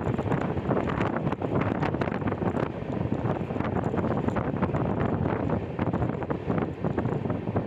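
Wind rushing and buffeting the microphone at the open side of a moving passenger train, over the steady rumble of the coaches' wheels running on the track, with frequent short knocks.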